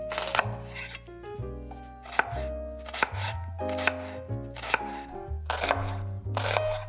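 Chef's knife slicing through a red onion onto a bamboo cutting board, a cut about every half second, with background music underneath.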